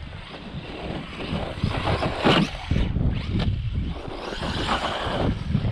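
A 1/10 off-road RC truck with a brushless motor driving over rough ground, its motor and tyres heard through wind buffeting the microphone, with a louder burst about two seconds in.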